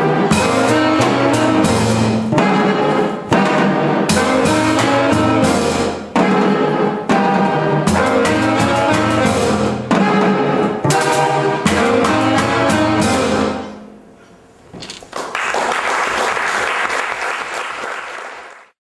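Small jazz band of saxophones and a brass horn over upright bass and drum kit, playing the close of a tune that ends about fourteen seconds in. Audience applause follows and cuts off abruptly just before the end.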